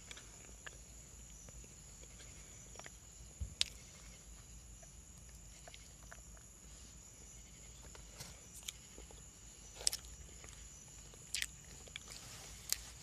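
Faint, scattered crunches and crackles of a chunk of cornstarch being chewed, a handful of sharp crisp snaps a few seconds apart.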